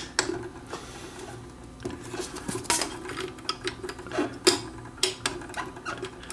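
Hands handling a turntable's rubber mat and plastic 45 RPM adapter on its metal platter: scattered light clicks and knocks, with sharper knocks nearly three seconds in and again around four and a half seconds in, over a faint steady hum.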